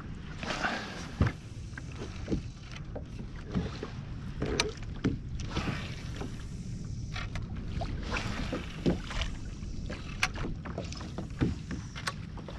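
Small waves lapping and slapping against a plastic kayak hull over a steady low wind rumble on the microphone, with scattered light knocks and clicks.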